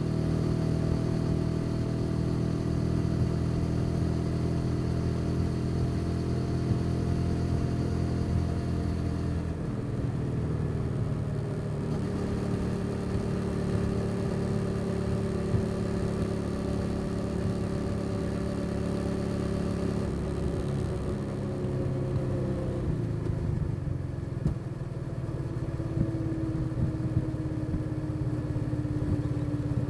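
Motorcycle engine running steadily under way. Its note drops in steps about ten seconds in and again a little after twenty seconds, then holds low, as the bike slows. A few short clicks come near the end.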